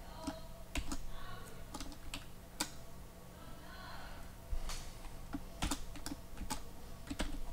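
Typing on a computer keyboard: irregular, scattered keystroke clicks.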